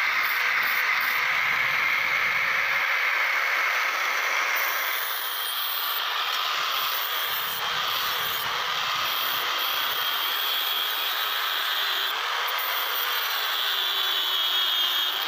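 Electric angle grinder with an abrasive disc grinding the edge of a forged steel billhook blade. It gives a steady high-pitched whine and rasp as it throws sparks, and the pitch shifts slightly as it goes.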